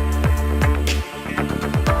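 Electronic background music with a heavy bass line, falling bass sweeps and a steady drum beat.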